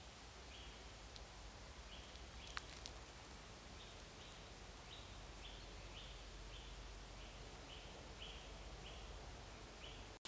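Faint forest ambience with a bird repeating a short high call about twice a second through the second half, over a soft steady background hiss; a couple of faint clicks come a few seconds in.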